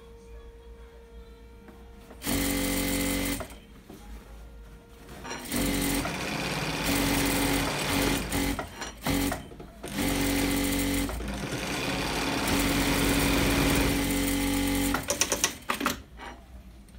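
ZOJE industrial lockstitch sewing machine stitching fabric in several runs. It starts and stops a few times, with pauses between seams and a few short stop-start bursts near the end.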